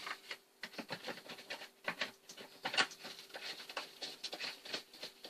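Irregular light clicks and taps of plastic chainsaw parts being handled and fitted together, as the air filter and its cover go back on, with a sharper click right at the start.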